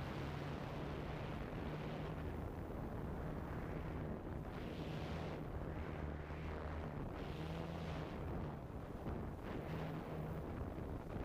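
Wind rushing over a GoPro's microphone in flight, swelling and easing, with a low wavering hum from the craft carrying the camera underneath.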